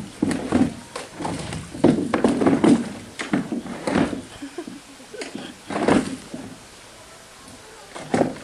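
A sun bear pushing a plastic tub of water about on wet rock: irregular knocks and scrapes of the plastic against the stone, with a short lull before a last knock near the end.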